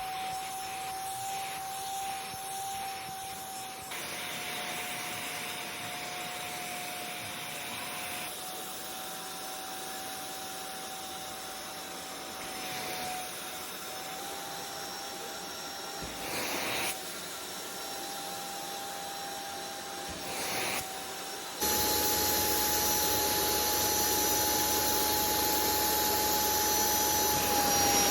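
Kiwi carpet and upholstery washing machine running, its suction motor giving a steady high whine over rushing air, with a couple of brief rushes partway through. About twenty seconds in it suddenly gets louder.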